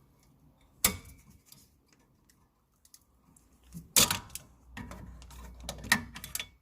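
Metal clicks and clatter of parts and tools being worked at a brake caliper while removing the brake pads: one sharp click about a second in, a louder clatter about four seconds in, then a run of small rattling clicks.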